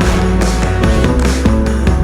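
Loud background music with a driving beat and heavy bass.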